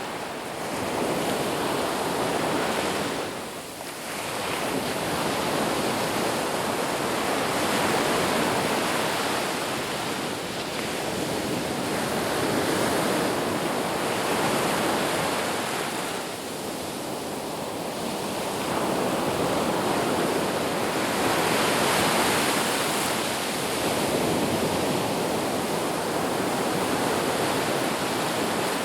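Sea waves breaking and washing in: continuous surf that swells and eases every few seconds, with clear lulls about four seconds in and again around sixteen seconds.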